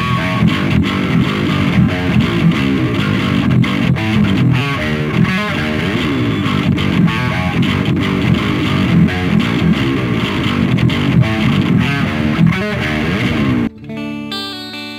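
Electric guitar played through the Flamma FM10's metal amp-simulation preset: heavily distorted metal riffing with many short, sharp notes. About a second before the end it switches, with a sudden drop in level, to the clean preset and clear, ringing notes.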